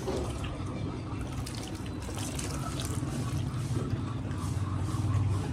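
Water trickling and splashing as it is run over a man's head and wet hair, with a steady low hum underneath.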